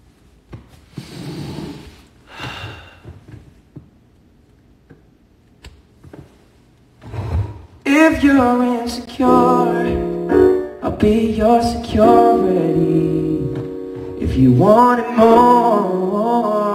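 A man sings a melody without clear words into a microphone over held chords on an electronic keyboard, starting about eight seconds in. Before that it is quiet apart from a few soft breathy noises.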